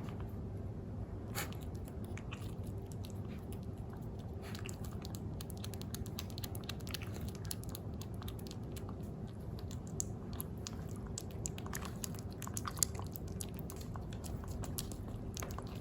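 A kitten licking Churu paste from the tube: a steady run of small, wet licking clicks and smacks, with one sharper click about 13 seconds in.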